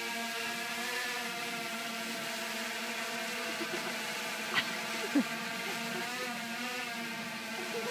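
Quadcopter drone hovering overhead, its propellers giving a steady buzzing whine whose pitch wavers slightly. About halfway through, two short chirp-like sounds, one rising and one falling, stand out briefly.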